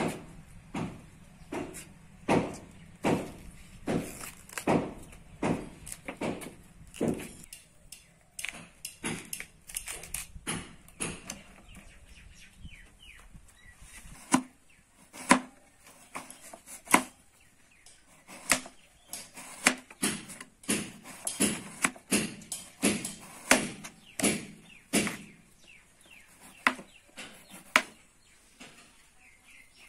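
Kitchen knife chopping a banana flower on a plastic cutting board: a long run of sharp knocks from the blade striking the board, coming in spells with a few short pauses.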